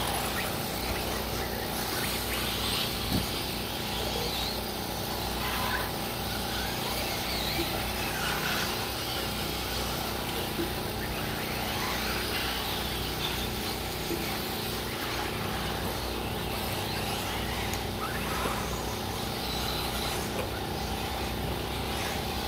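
1/8-scale electric RC buggies racing on a clay track, their motors whining up and down in short sweeps as they accelerate and brake, over steady outdoor background noise.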